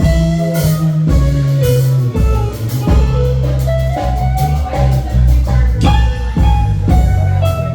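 Live band playing: a bass guitar line, a drum kit and guitar, continuous and loud.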